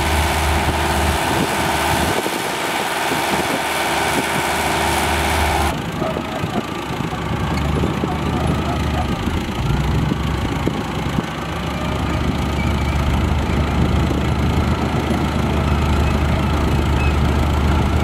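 Diesel engine of a small Mitsubishi BD2G crawler bulldozer running. About six seconds in it gives way to a Komatsu D58P bulldozer's diesel engine idling steadily.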